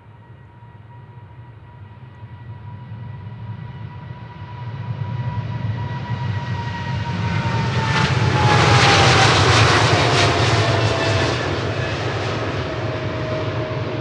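Large jet airliner taking off, its engines building to a loud roar that peaks about nine seconds in as it passes. A steady fan whine drops in pitch as it goes by.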